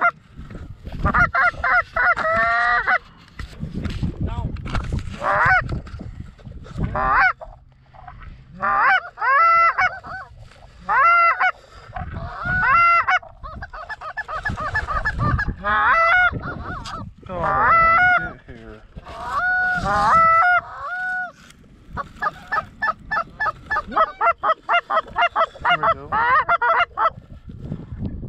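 Canada goose calls blown hard at close range: loud honks and clucks in bursts, ending in a fast string of rapid clucks, calling to geese working toward the decoys.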